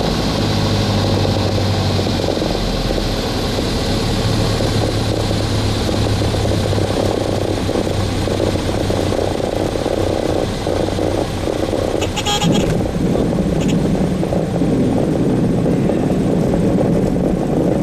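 Grumman AA-5A Cheetah's four-cylinder Lycoming O-320 engine and propeller at full power during the takeoff roll, a steady loud drone heard from inside the cockpit. A brief burst of sharp clicks or rattle comes about two-thirds of the way through.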